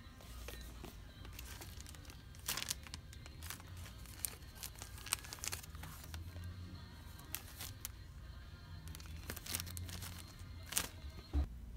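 Clear plastic sleeves crinkling and rustling in irregular bursts as sleeved magazine-ad prints are flipped through in a wire rack, with music in the background.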